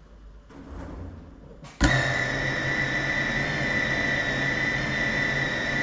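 Brushless motors of a small FPV cinewhoop drone spinning up suddenly about two seconds in, then idling on the ground with a steady high whine and low hum: the drone is armed and ready for takeoff.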